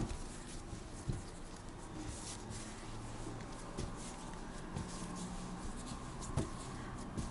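Hands kneading soft honey-cake dough on a floured countertop: quiet rubbing and pressing, with a few light knocks of the dough against the counter.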